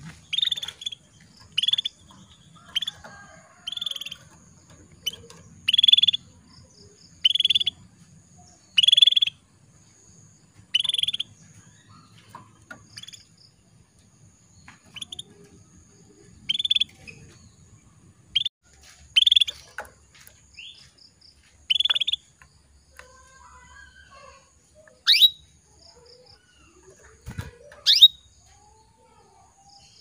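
Female canary calling for a male: a series of short, clipped call notes, roughly one every second or so at first and then sparser, with two sharp rising chirps near the end. A faint steady high insect buzz runs underneath.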